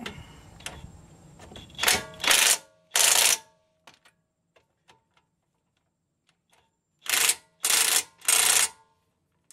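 Cordless DeWalt impact wrench hammering in short bursts, three about two to three and a half seconds in and three more about seven to eight and a half seconds in, tightening bolts on a front brake assembly by feel.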